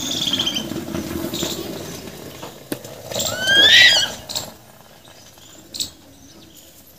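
Fresh milk pouring from a steel bucket into a steel milk can, a steady splashing pour that fades over the first couple of seconds. About three seconds in comes a loud, high squeal of rising glides lasting about a second, followed by a few light clinks.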